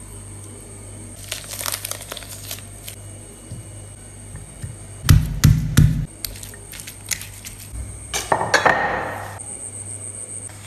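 Household handling noises: scattered clicks and clinks, a few heavy thumps about five seconds in, and a crinkling rustle near the end.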